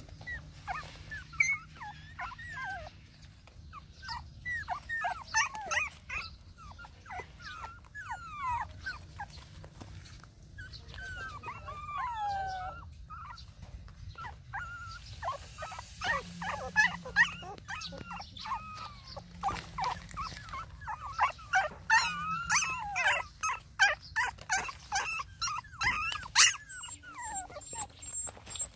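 Puppies whimpering and whining: many short, high cries that mostly fall in pitch, coming thick and fast in the second half.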